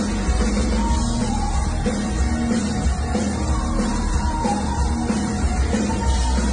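Rock song with a sung lead vocal over a full band: steady bass, guitar and keyboards.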